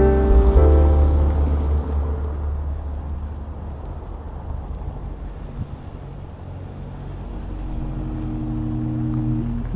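Low, steady rumble of wind and road noise on a bike-worn action camera's microphone, with a car possibly among it. Music fades out over the first two seconds and comes back in about seven and a half seconds in.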